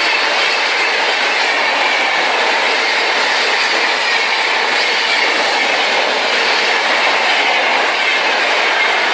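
Indian Railways train running along the track: the wheels on the rails make a steady, loud noise that holds even throughout.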